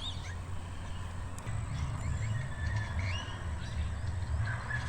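Outdoor ambience: a few short, faint bird chirps over a steady low rumble that grows stronger about a second and a half in.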